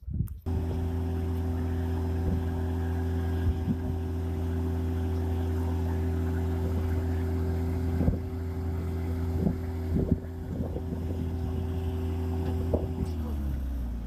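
An engine running at a steady speed, its pitch sliding down a little near the end, with a few sharp knocks over it.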